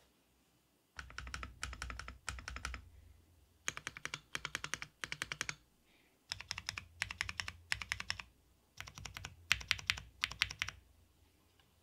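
Typing on a mechanical keyboard with lubed Cherry MX Black Hyperglide linear switches, a polycarbonate plate with Poron plate foam, and GMK keycaps. Four bursts of rapid keystrokes with short pauses between them, each keystroke a click over a low thock.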